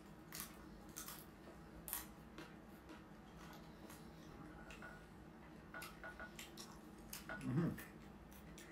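Faint scattered clicks and crunches of eating: chopsticks tapping and picking at crispy fried noodles and the noodles being bitten and chewed.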